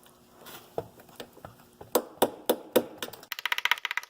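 Hammer tapping at the roll pin in a Geo Metro 5-speed transmission's 5th-gear shift fork: about seven sharp metal knocks, the later ones harder. Near the end comes a fast, even rattle of clicks lasting over a second.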